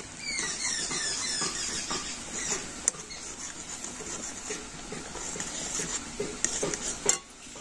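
Metal spatula stirring and scraping in an aluminium kadai as semolina is poured into boiling milk, with scattered clicks of the spatula against the pan, sharpest near the end. A short run of high, squeaky falling chirps comes in the first second.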